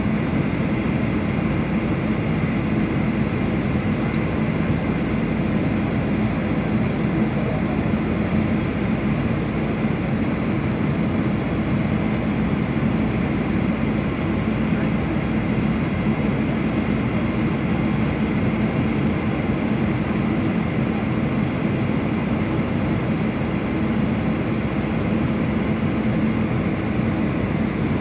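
Cabin noise of a Boeing 737 airliner on its descent: a steady drone of jet engines and rushing air with a constant low hum, unchanging throughout.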